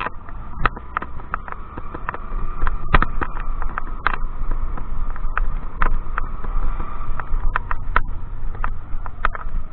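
Strong wind buffeting the microphone during a scooter ride, a heavy low rumble, with the scooter's engine running steadily underneath and scattered sharp knocks throughout.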